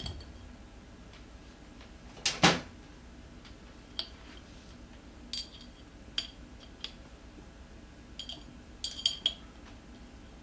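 A pair of loud knocks about two seconds in, then a scatter of light metallic clinks and taps, as tools and hands work against an e-scooter wheel rim to pull the inner tube's valve stem out of the rim hole.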